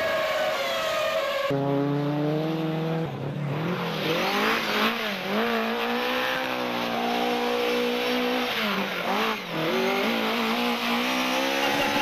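Formula One car engines passing at high revs, their pitch falling. About a second and a half in this gives way to a rally car's engine, held steady at first and then revved up and down hard, over and over.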